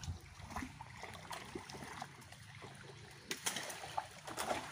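River water sloshing and splashing around men wading and handling a floated fishing net, with a few sharper splashes about three and a half seconds in and again near the end.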